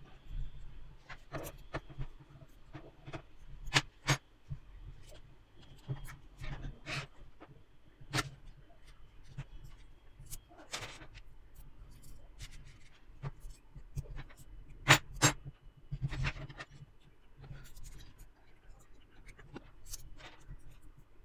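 Small metal construction-kit strips, screws and nuts clicking and clinking as they are handled and fitted together by hand, in irregular sharp clicks with the loudest about fifteen seconds in.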